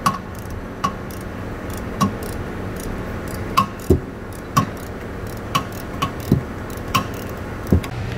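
Hand ratchet clicking as it unscrews a rear brake caliper bracket bolt, a sharp tick about once a second, with a few duller metal knocks between.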